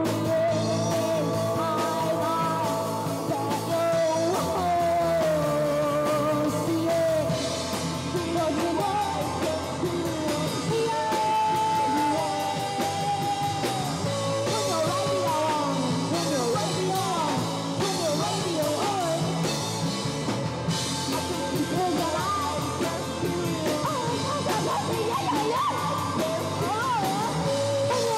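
A live rock band playing, with guitar, drums and a singing voice.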